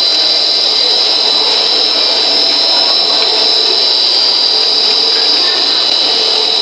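3D snack pellet production line running steadily: the forming rollers, chain drives and cutter of the dough-sheet line turning, with a continuous high whine over the machine noise.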